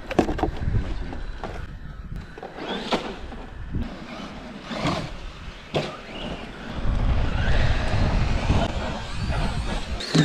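Electric RC monster trucks driving on loose dirt and gravel: motor whine and tyre crunch, with several sharp clatters from the trucks landing and hitting the ground. Wind rumbles on the microphone over the last few seconds.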